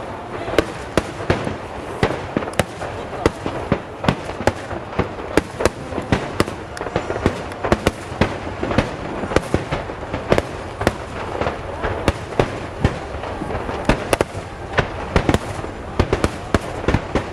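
Fireworks display going off in a rapid, uneven barrage of sharp bangs, two to three a second, over a continuous noisy wash.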